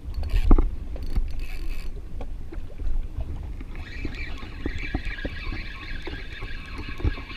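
Small waves lapping and knocking against the hull of a drifting jet ski, with wind rumble on the microphone; about four seconds in a steady high whirring starts and carries on.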